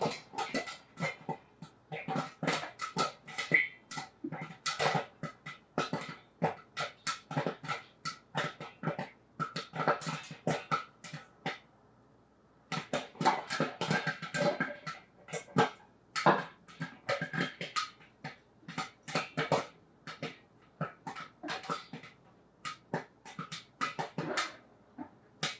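Popcorn kernels popping in a pot on the stove: a fast, irregular run of sharp pops, with a short lull about halfway through.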